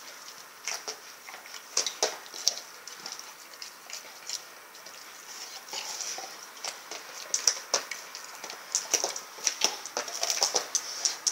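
Rottweiler chewing a whole raw, frozen turkey: irregular wet crunches, snaps and tearing as its teeth work at the carcass, coming faster and louder near the end.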